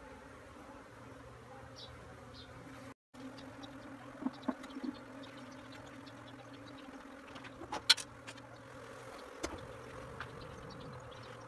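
A disturbed colony of Asian honeybees (Apis cerana) buzzing steadily. A few scattered knocks come over the buzzing, the loudest and sharpest about eight seconds in.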